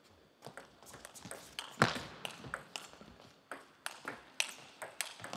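Table tennis rally: the ball clicking off the players' bats and bouncing on the table in quick succession, starting about half a second in, with the hardest hit about two seconds in.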